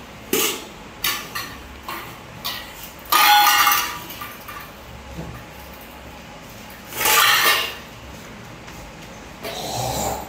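Stainless steel bowls and plates knocking and clattering against each other and a plastic basket as a toddler handles them: a few light knocks, then a loud clatter with metallic ringing about three seconds in, and another loud clatter about seven seconds in.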